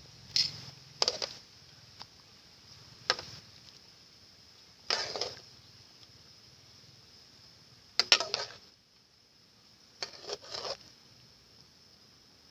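Irregularly spaced short scrapes and knocks of food preparation, about six in all, with a faint steady high-pitched hiss underneath.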